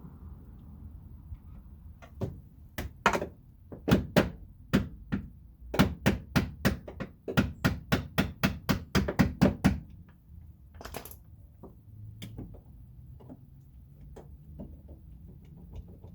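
A run of sharp knocks, sparse at first, then about three a second for several seconds, followed a second later by a brief scraping rustle.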